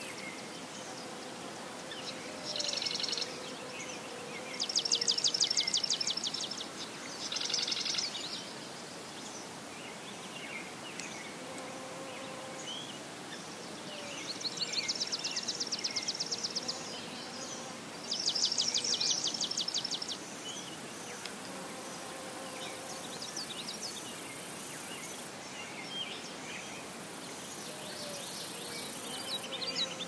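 Marsh ambience: several loud, buzzy, rapidly pulsed trills, each one to three seconds long, come five times over a steady natural background with faint short calls.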